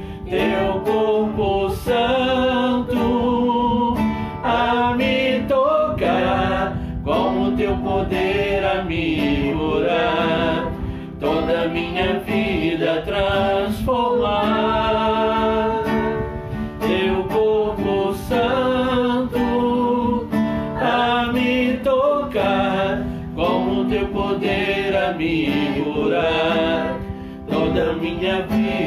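A man singing a slow worship hymn to a strummed acoustic guitar.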